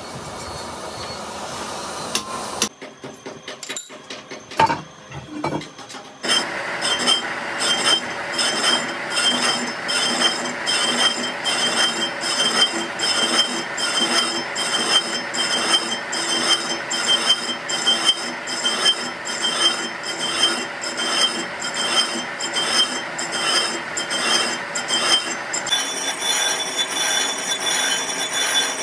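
Metal lathe cutting a cast-iron truck brake drum. A steady cutting sound at first; then, after a few knocks, from about six seconds in, the tool works the rough, unmachined surface of the casting with a fast, even, ratcheting tick and a high ringing.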